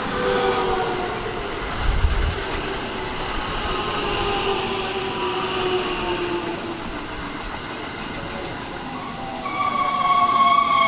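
Electric commuter train rolling slowly past, its motor inverter whine falling steadily in pitch as it brakes into the station, over wheel rumble with a low thud about two seconds in. Near the end a loud, steady high tone sets in.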